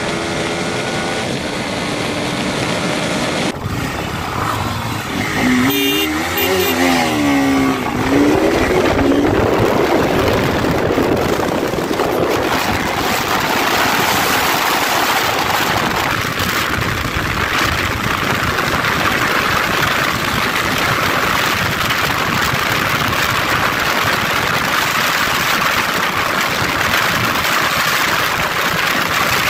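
Sport motorcycle ridden hard at speed, heard from on board: the engine note rises and falls a few times about five to eight seconds in, then a steady heavy rush of wind over the microphone covers most of it.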